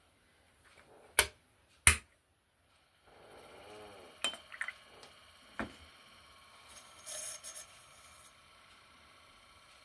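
Two sharp clicks about a second in, then softer taps and clicks and rustling handling noise from tools and hands at a miniature pottery wheel.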